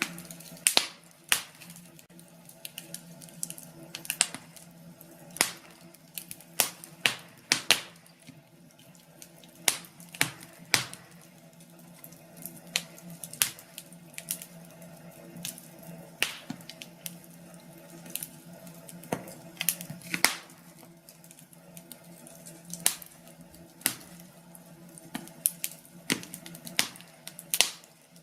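Wood fire burning in a fireplace, crackling with irregular sharp pops, one to three a second, over a faint steady hum.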